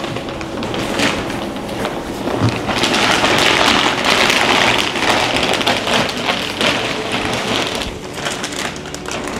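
A plastic sheet rustling and crinkling as it is pulled out from under a body, loudest in the middle, with light thuds.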